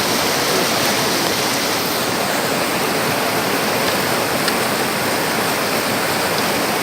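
Steady rushing of flowing water, a continuous even hiss.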